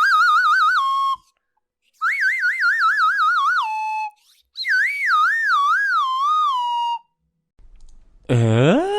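Cartoon warbling-whistle sound effects: three separate whistles, each wobbling quickly up and down before settling on a lower held note. Near the end comes a short, loud comic sound that slides upward in pitch.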